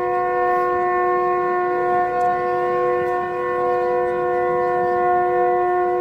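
A loud, steady, sustained horn-like tone, several pitches sounding together as one chord and held without a break, over a faint crowd murmur.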